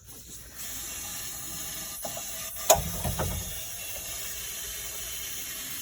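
Steady hiss through a just-opened valve on a water heater's plumbing, with one sharp knock and a brief low rumble about two and a half seconds in.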